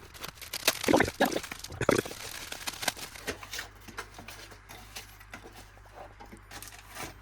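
A parcel being unwrapped by hand: packaging rustling and crackling, with irregular knocks and scrapes. The noise is busiest in the first three seconds and thins out after.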